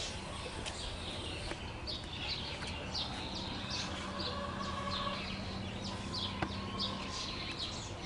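A flock of small birds chirping and calling together, many short overlapping calls at once, continuously.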